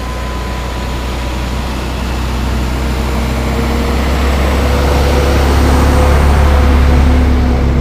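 A heavy vehicle engine running: a loud low hum with a couple of steady tones, growing louder over about six seconds and easing slightly near the end.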